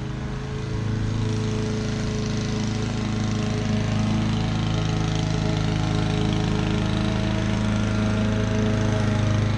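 Honda 216 self-propelled lawn mower's four-stroke engine running steadily while mowing, growing a little louder about a second in.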